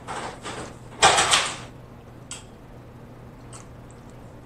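Close-miked sounds of eating snow crab legs: a short burst of shell and mouth noise about a second in, a few faint clicks after it, and a steady low hum underneath.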